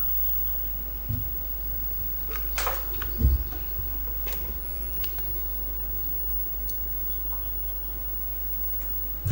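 Steady low electrical hum with a few scattered sharp clicks and one soft thump about three seconds in.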